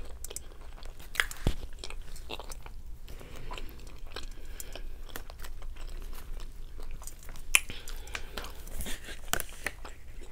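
A person chewing a mouthful of cheeseburger close to the microphone, with scattered sharp clicks and crunches.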